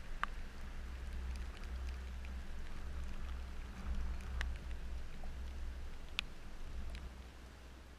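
Steady rain falling, with sharp ticks of drops striking close by, three standing out from the rest, over a low rumble. It fades out near the end.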